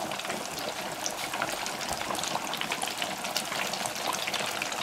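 Breaded bacon cordon bleu deep-frying in hot oil in an electric deep fryer: the oil bubbles and crackles steadily and densely, the fryer set near full heat.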